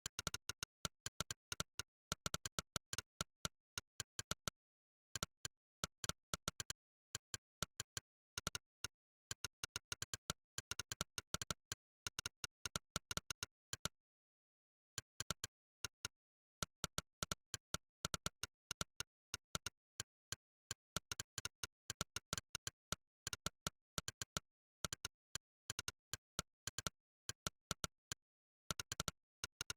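Monkeytype's "click" typing sound effect: a sharp synthetic click for every keystroke, in fast runs of several clicks a second. The runs break off in short pauses, the longest about a second halfway through.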